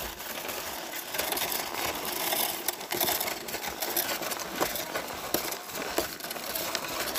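Footsteps crunching on packed snow: a steady hiss broken by irregular crunches and knocks.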